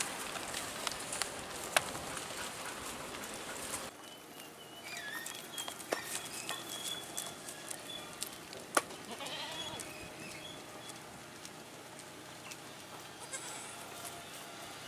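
Domestic goats browsing in dry twigs and leaves: rustling with a few sharp snaps, and goat bleats now and then. The rustling drops away about four seconds in.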